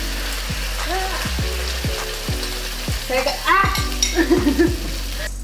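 A red tomato, chili and barbecue sauce sizzles steadily as it is poured into hot butter and minced garlic in a frying pan. A light steady beat of background music runs underneath.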